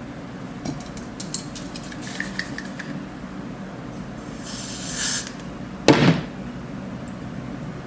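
Small objects being handled: a run of light clicks and taps, a hiss of about a second some four seconds in, then one loud knock about six seconds in.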